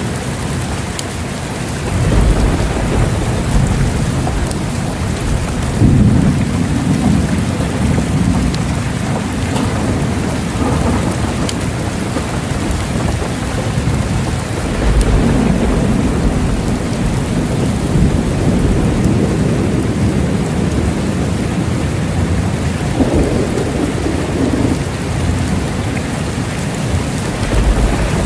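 Steady heavy rain hissing, with rolling thunder rumbling in several long swells, the first about two seconds in and others near the middle and end.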